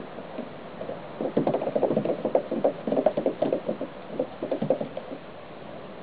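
A cat's paws and body rubbing and knocking on a plastic playground slide as it slides and scrambles down: a rapid, irregular run of squeaks and hollow knocks from about a second in, dying away near the end.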